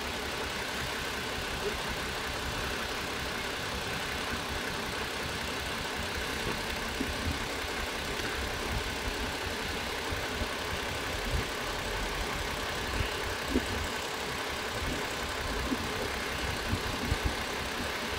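Toyota Avalon engine idling steadily while it has a misfire, which the mechanic traces to a clogged injector. A few short clicks stand out in the second half.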